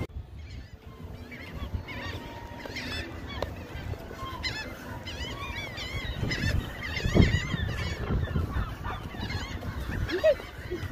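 Gulls calling over and over, the squealing calls overlapping, after a brief near-gap in the first second. Under them, a low wind rumble on the microphone swells about seven seconds in.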